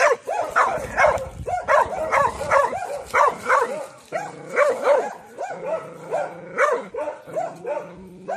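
Young Taiwan dog barking over and over at an approaching stranger, two to three sharp barks a second: alert, guarding barking.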